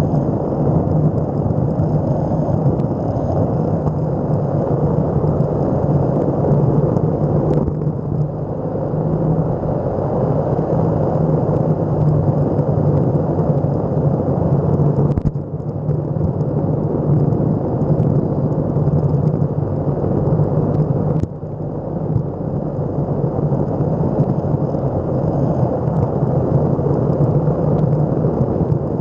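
Electric skateboard's wheels rolling over an asphalt road: a steady loud rumble, with three short sudden dips in level, about 8, 15 and 21 seconds in.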